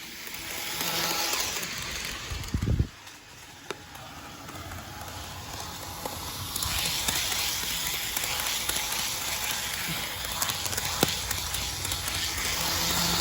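HO scale model train running on its track: a steady hissing rumble of the motor and wheels, growing brighter about six seconds in, with scattered sharp clicks. A low thump sounds about two and a half seconds in.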